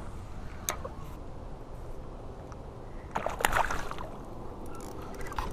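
Small waves lapping and sloshing against the hull of a Predator MX fishing kayak. A sharp click comes under a second in, and a short run of clicks and rattling about three seconds in.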